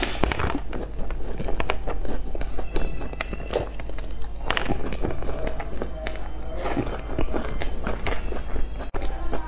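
Close-miked eating of crumble-topped cream puffs: soft bites into the crisp crumbly topping and chewing of the soft pastry and cream, with many small mouth clicks and crackles.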